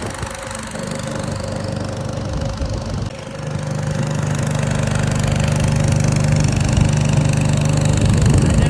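Small engine of a wooden lake boat running steadily under way, growing louder a little over three seconds in.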